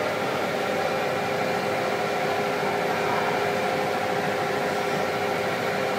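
Steady machine hum with a hiss and a few steady tones, from the pumps and cooling units of live-seafood tanks.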